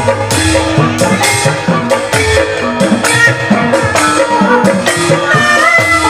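Javanese gamelan music: bronze gongs, kettle gongs and metallophones ringing over a steady run of drum and percussion strokes, with a wavering melody line coming in over the top in the second half.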